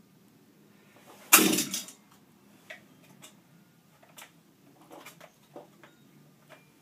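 Recoil starter of a Shindaiwa power broom's two-stroke engine pulled once, about a second in: a short whirr of the engine being spun over, dying away without catching. A few light clicks follow from handling the machine.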